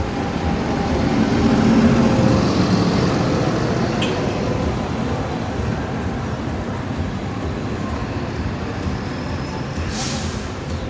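Tour bus engine rumbling close by, swelling as it passes in the first few seconds, over a steady traffic noise. A short, sharp hiss comes near the end.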